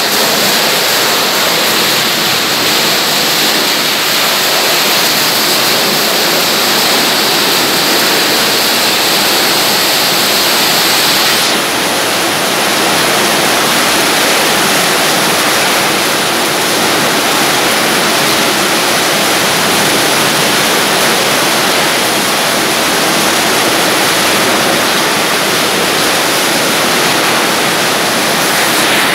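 Label scraper machine for plastic-bottle recycling running, a loud, steady rushing noise from the belt-driven drum churning its load. About twelve seconds in, the high hiss changes tone.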